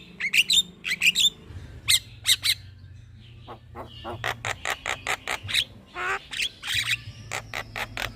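Javan myna calling: a long string of short, harsh squawks and whistled chirps, with a quick rapid-fire run of notes in the middle. A faint steady low hum lies underneath.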